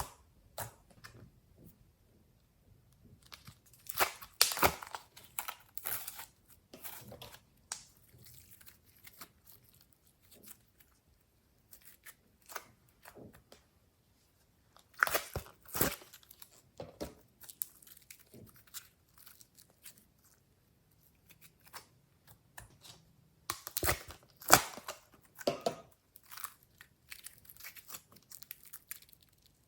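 Glossy slime being squeezed, stretched and poked by hand, giving crackling and popping clicks that come in three busier bouts with scattered clicks between.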